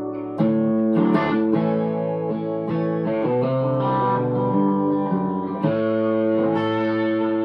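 1961 Gibson SG Special electric guitar, played through an amplifier on its bridge P-90 pickup with the guitar's volume knob rolled back to about 8. Chords are strummed and left to ring, with fresh strums about half a second in, near a second and near the end, and the chord changing in the middle.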